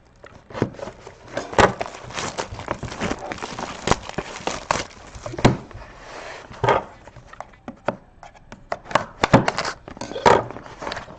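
A sealed trading-card box being opened and handled by hand: crinkling wrapper and scraping cardboard, with many small knocks and clicks.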